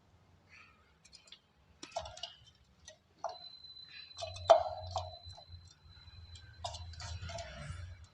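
Soft black gym chalk crunching and crumbling in irregular sharp cracks, the loudest about four and a half seconds in.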